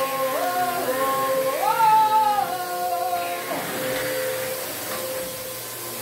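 A vacuum cleaner running with a steady whine, with someone singing a melody over it for the first three and a half seconds or so.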